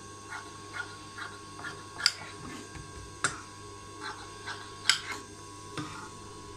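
Tailoring scissors snipping through blouse lining fabric to trim off the excess, in short, even snips about two or three a second, with three sharper clicks of the blades.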